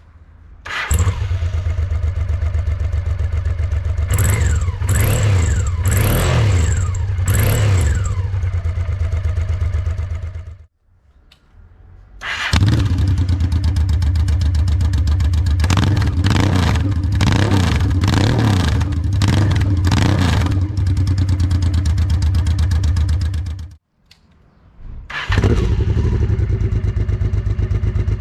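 Honda XRV750 Africa Twin V-twin motorcycle engine started, idling and revved with quick blips, three times over with different exhausts: first through a Giannelli muffler close to the original, then with no muffler at all, then, near the end, through an Arrow Paris-Dakar replica. Each run starts abruptly after a short quiet gap, and the revs rise and fall several times in the first two runs.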